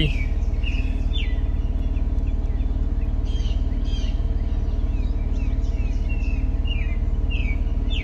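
Small birds chirping in a run of short notes, each sliding down in pitch, over a steady low hum.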